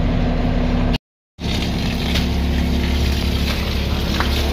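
Fire engine's pump engine running with a steady low drone under the hiss of a water jet from a fire hose. A brief dropout to silence about a second in.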